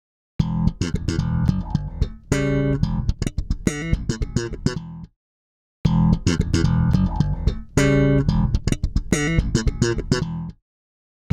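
Five-string electric bass playing the same short phrase twice, with a brief silence after each. The first pass runs through a Zoom MS-60B's 160 Comp compressor model, the second, about six seconds in, through an Origin Effects Cali76-TX compressor pedal.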